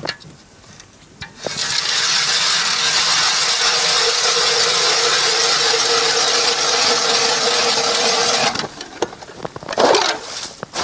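Ice auger boring a hole through river ice: a steady grinding for about seven seconds that then stops, followed by a short scraping sound near the end.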